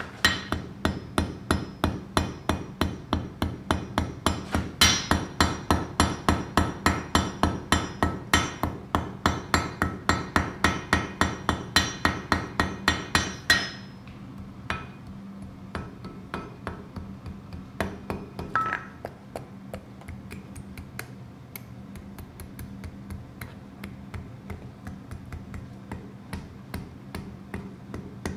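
Blacksmith's hammer forging a loop from 3 mm wire on the anvil: a fast, even run of blows, about four a second, that stops about halfway, followed by lighter, sparser taps. A steady low hum runs underneath.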